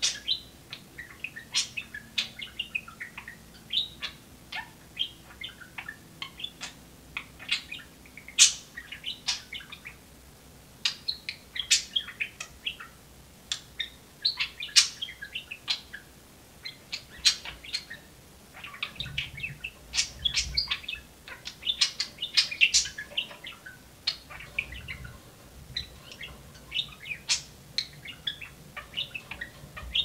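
Pet budgerigars chirping and warbling: a continuous stream of short, high chirps and clicks.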